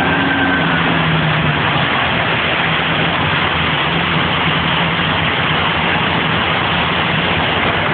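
Steady, loud rushing of an automatic car wash at work, with a low engine hum underneath.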